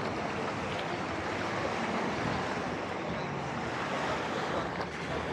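Mediterranean surf washing steadily onto a sandy beach, with some wind.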